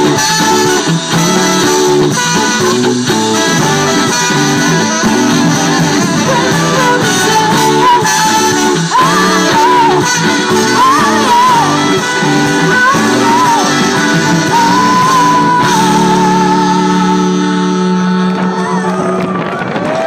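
Live band playing with horns (saxophone and trumpet), electric guitar, bass and drums, and a woman singing over it. In the last few seconds the band holds one long chord, which stops just before the end.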